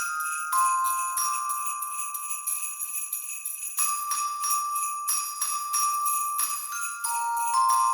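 Instrumental Christmas music led by shaken jingle bells, over a slow melody of long, ringing bell-like notes.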